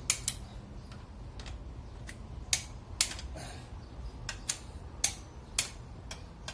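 Ratchet wrench clicking as cylinder head bolts on a Mercedes M111 four-cylinder engine are snugged down, a dozen or so sharp metallic clicks at irregular intervals.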